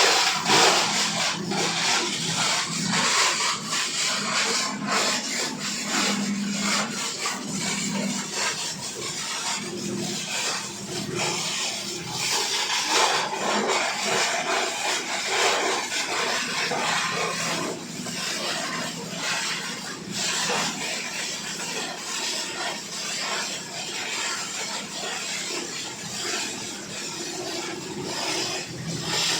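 18-inch PET bottle grinder running with plastic being fed through its cutting chamber: a continuous dense crunching and rattling of bottles being chopped, over a steady machine hum.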